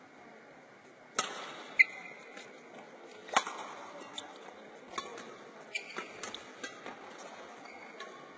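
Badminton rackets striking a shuttlecock in a practice rally: about eight sharp cracks at irregular intervals, the loudest in the first two seconds.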